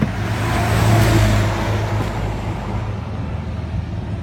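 Ryobi 100 V electric chainsaw switched on with a click, its motor and chain running up to full speed and then winding down after about two seconds, being test-run with no load.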